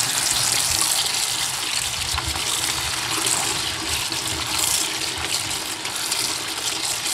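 Kitchen tap running in a steady stream onto Thai sweet basil leaves in a plastic colander, splashing into a stainless steel sink while hands turn the leaves over to rinse them.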